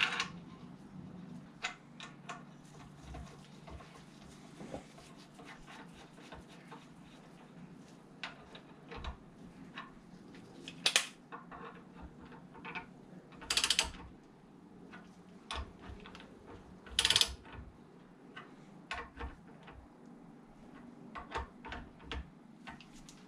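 A ratchet wrench ratcheting while it turns ARP L19 connecting rod bolts: scattered light metallic clicks, with three louder runs of ratcheting about 11, 13.5 and 17 seconds in, over a faint low hum.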